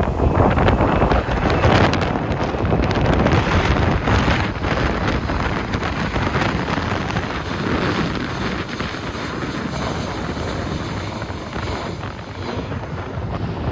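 Strong wind buffeting the microphone, with a jet airliner's engines running under it during a go-around; a faint high whine comes through in the middle seconds.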